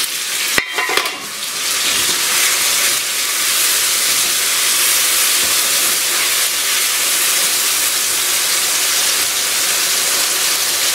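Chicken pieces in masala sizzling steadily in a non-stick wok while a spatula stirs and turns them. One sharp click about half a second in.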